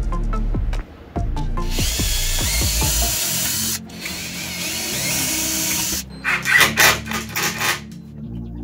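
Cordless drill boring into OSB board. The motor runs for about two seconds, stops for a moment, then runs for two more seconds, followed by a few short stuttering bursts. Background music plays underneath.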